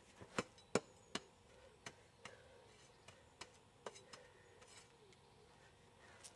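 A series of irregular sharp clicks and taps, the loudest two close together about half a second in, the rest fainter and spread out.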